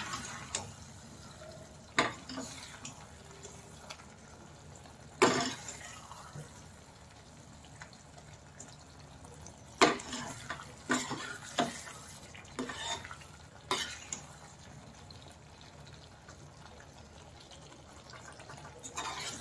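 Thick curry gravy simmering in a stainless steel pan, with scattered sharp pops and clinks as it bubbles and a steel ladle stirs and scrapes through it.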